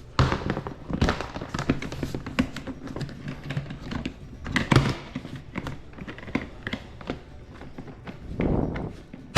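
Boxes and stored belongings being handled and rummaged through: a string of thunks, taps and knocks as items are moved and set down, with a brief rustle near the end.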